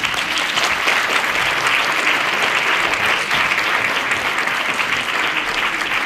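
Audience applause: dense, steady clapping that breaks out at once and holds at an even level.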